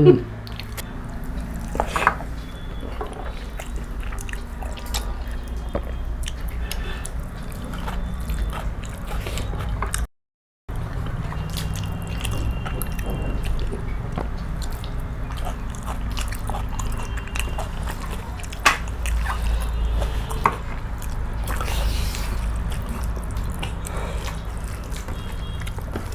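Wet chewing and mouth sounds of people eating, with scattered light clicks over a steady low hum. The sound drops out completely for about half a second around ten seconds in.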